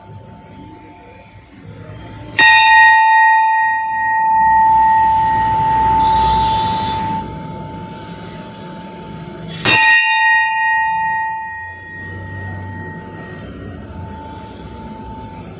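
Bronze bell struck twice, about seven seconds apart, at the same pitch each time; each strike rings out in a long, clear tone that slowly fades.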